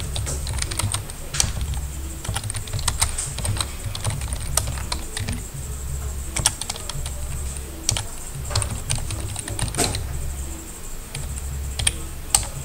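Typing on a computer keyboard: irregular key clicks, a few sharper than the rest, over a steady low hum.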